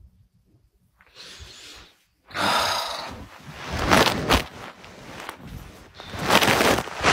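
A woman's heavy breathing and sighs close to the phone's microphone, in a few loud gusts: a soft one about a second in, then louder ones a little past two seconds, around four seconds and near the end.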